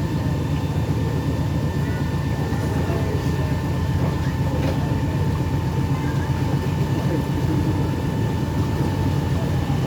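A tour boat's motor runs steadily, heard from on board: an even low rumble with a constant high whine over it.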